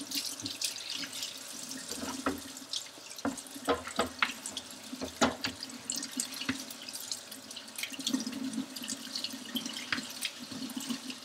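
Kitchen faucet running warm water into the sink while a kitchen strainer is rinsed under it, with frequent knocks and clatters as the strainer is handled against the sink.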